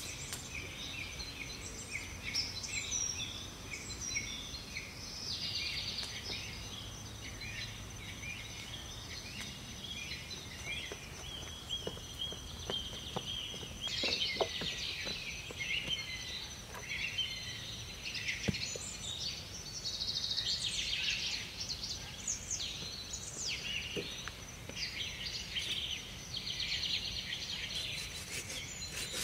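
Several wild birds singing and chirping, with many short calls and trills overlapping throughout, over a thin steady high tone and a few faint knocks.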